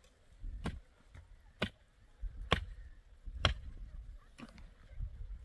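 Long-handled pick striking the ground to dig out earth, in a steady rhythm of about one blow a second: four sharp strikes, then a fainter one near the end.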